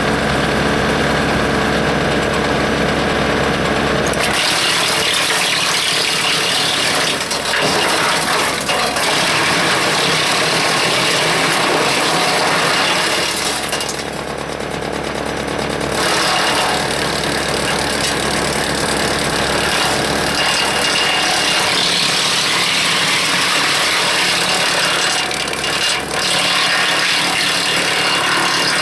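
Hanmey WCX5 PTO-driven wood chipper, run from a tractor, turning over steadily, then chipping branches with a loud, rough grinding. It drops back to running without load briefly in the middle before chipping again.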